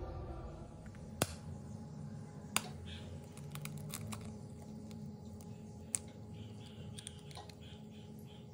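A raw egg being cracked over a glass bowl: three sharp clicks of the shell being struck, with smaller clicks and faint crackling as the shell is pried apart, over a faint steady hum.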